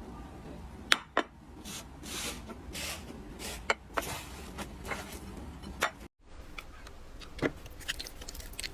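Slime being squished and pressed by hand: irregular wet pops, clicks and squelching swishes. About six seconds in the sound breaks off briefly, then resumes as quicker, finer crackling clicks.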